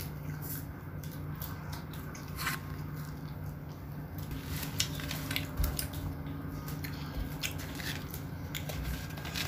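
A child eating close to the microphone: chewing and lip smacking, with scattered short clicks as a plastic fork is handled in a paper food tray, over a steady low hum.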